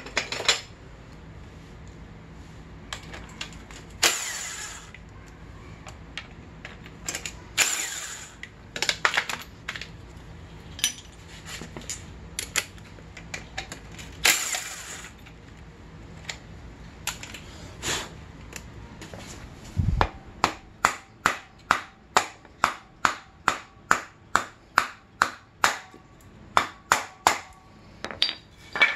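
Cordless power tool run in short bursts on a dirt bike's rear axle nut, with metal clinks and knocks between. About two-thirds of the way through there is a dull thump, then a quick, even series of sharp clicks, about three a second, until near the end.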